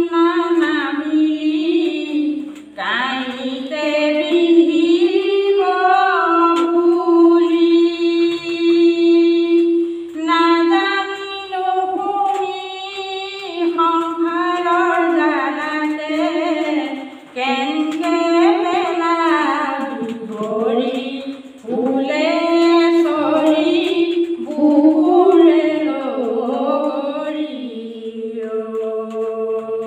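A woman singing an Assamese folk song (lokageet) unaccompanied, one voice drawing out long held notes that bend and slide in pitch, with brief pauses for breath.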